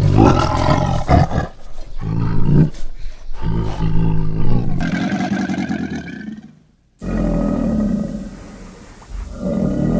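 Big cat roaring, a run of separate loud roars from spliced recordings, with a brief cut to silence about seven seconds in before another roar begins.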